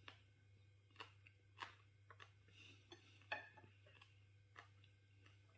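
Near silence with a low steady hum, broken by a handful of faint, short clicks from a man eating a roast pork dinner.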